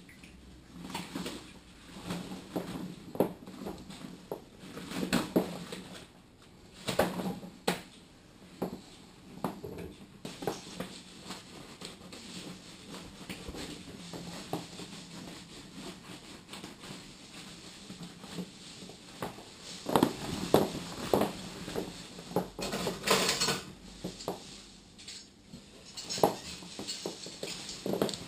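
Dishes and cutlery clinking and knocking in a kitchen sink during washing up: irregular clinks and clatters, some much louder than others.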